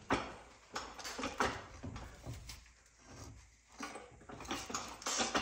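Irregular knocks and scrapes of a manual transmission being worked up into place against the engine by hand, with a few sharper knocks near the start, about a second and a half in, and near the end.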